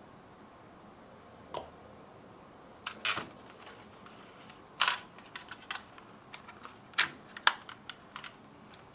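Scattered light clicks and taps of plastic model-kit parts being handled and fitted onto a styrene aircraft fuselage, sparse at first and more frequent in the second half.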